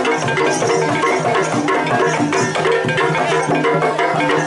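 Traditional Javanese gamelan-style music for a barong dance: hand drums beating steadily over pitched instruments playing a melody.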